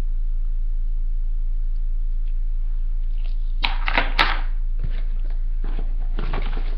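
A steady electrical mains hum underneath. About three and a half seconds in comes a quick cluster of clicks and rustling as objects and packaging are handled, with more rustling near the end.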